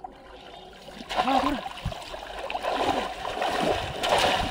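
Splashing and sloshing of shallow muddy water as hands churn it around a bamboo polo fish trap pressed into the mud, starting about a second in and swelling several times.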